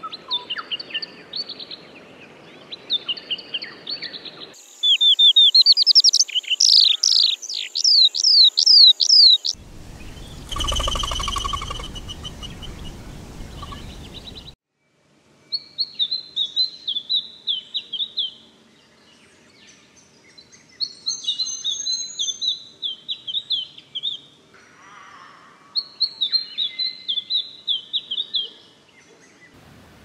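Striated fieldwren song: fast, high whistled notes sweeping up and down, with a stretch of low rumbling noise behind the bird near the middle. After a short break, a flame robin sings three runs of quick descending notes a few seconds apart.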